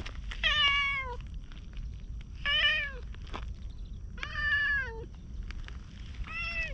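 Ginger tabby cat meowing four times, roughly every two seconds, each meow under a second long and dropping in pitch at the end.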